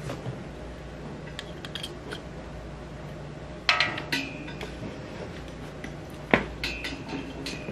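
A few sharp clicks and knocks from a printer's power cable and plug being handled and plugged in, in two clusters, the loudest knock about six seconds in.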